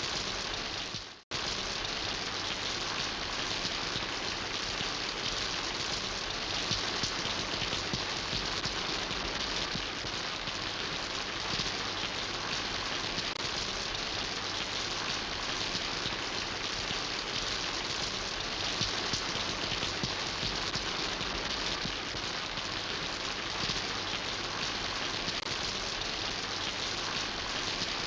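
Steady rain falling, an even hiss of many drops. About a second in the sound briefly fades out to near silence and cuts straight back in.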